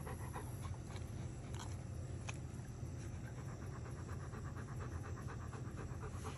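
A Chesapeake Bay retriever panting fast and evenly, over a steady low hum.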